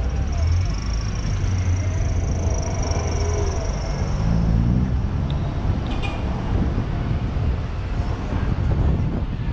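Car driving on a road: a steady low rumble of engine and tyre noise, with a thin high steady tone through the first half and a brief click about six seconds in.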